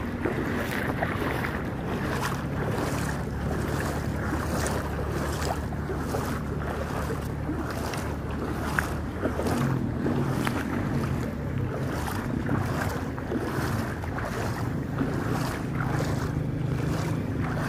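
Motor vehicle engine running as it pushes through floodwater, with water sloshing and splashing in a steady rhythm and wind buffeting the microphone.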